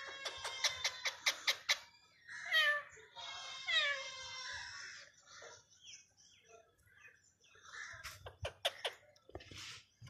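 Rose-ringed parakeet calling: a quick run of shrill, even calls, then a few falling squawks. A few sharp clicks come near the end.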